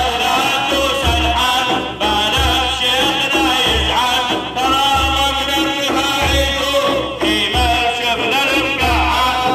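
Arabic devotional madih music: a wavering, ornamented melody over a steady, repeating low drum beat.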